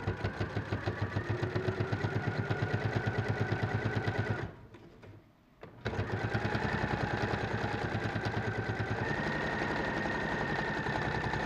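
Sewing machine stitching at a steady fast pace, top stitching along a collar edge; it stops for about a second and a half partway through, then starts again and runs on.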